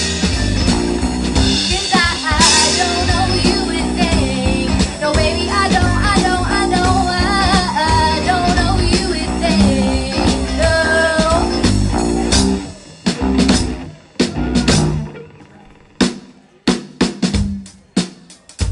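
Live band with electric guitars, bass, drum kit and female vocals playing until about twelve seconds in, when the full band stops and the drum kit carries on alone with a sparse beat of snare and rim hits.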